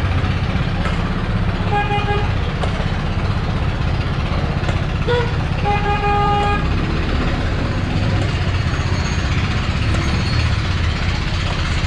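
A vehicle horn toots twice, briefly about two seconds in and longer around six seconds in. Under it runs a steady low street rumble and the hiss of dough balls frying in a large wok of oil.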